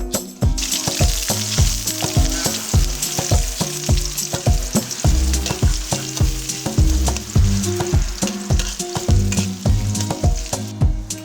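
Food sizzling as it fries in hot oil, starting about half a second in and stopping just before the end, over background music with a steady beat.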